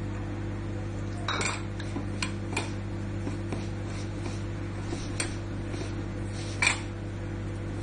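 A steel mixing bowl clinking and knocking about five times as flour, semolina and milk are mixed by hand in it, the loudest knock near the end, over a steady low hum.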